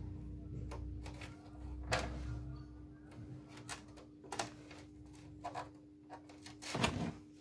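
Hard plastic parts of a copier paper cassette clicking and tapping under the fingers as a freshly glued piece is pressed into place, with a louder knock near the end. A faint steady hum runs underneath.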